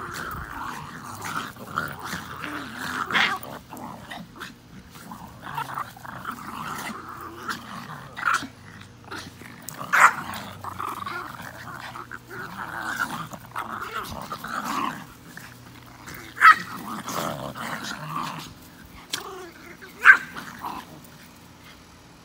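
Small dogs play-fighting, growling almost without pause, with several sharp, loud yaps breaking through.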